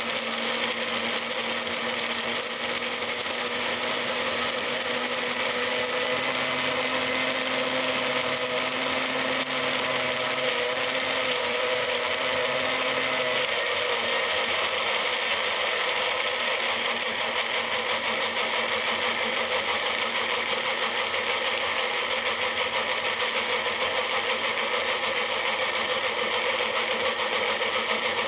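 Personal bullet-style blender running steadily, puréeing basil leaves into pesto. A low hum in its motor note drops out about halfway through, and the motor runs on.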